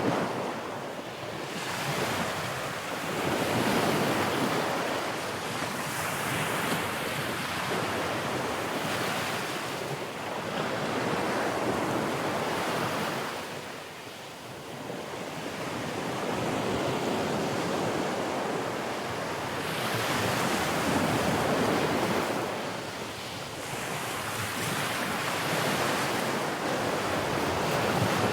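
Sea waves breaking and washing ashore in a continuous surging roar that swells and eases every several seconds, with wind on the microphone.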